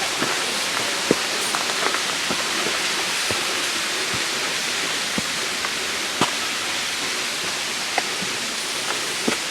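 Steady rushing of a waterfall, with occasional short sharp ticks over it.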